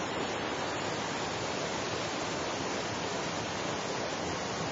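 Steady rushing noise of falling water from a tall waterfall, an even unbroken hiss across all pitches.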